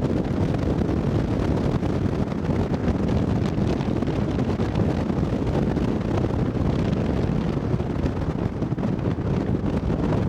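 Wind buffeting the camcorder microphone: a steady, dense low rumble with no breaks.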